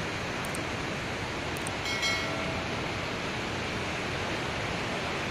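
Steady rushing of a river in flood, muddy floodwater tumbling over rocks at a waterfall. A short faint tone sounds about two seconds in.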